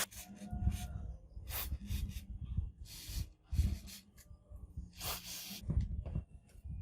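Workshop handling noises: irregular dull knocks and rustling, with two short hissing bursts of about half a second each, over a faint steady hum.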